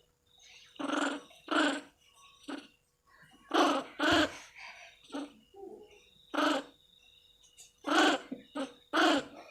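Monkey calls: a string of short, pitched calls, about one a second, some coming in quick pairs. A faint steady high tone runs behind them.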